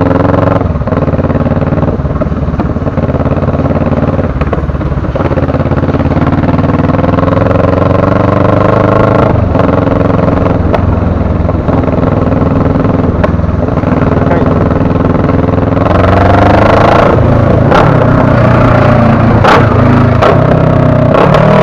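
Motorcycle engine running while riding, its pitch sinking and climbing with speed, then climbing and growing louder about sixteen seconds in as it accelerates.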